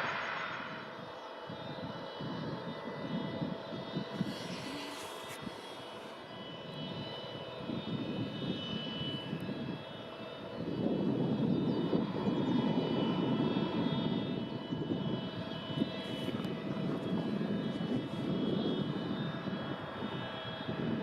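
Boeing 747SP jet engines running: a set of steady high whining tones over a rough, fluctuating rumble that grows louder about halfway through.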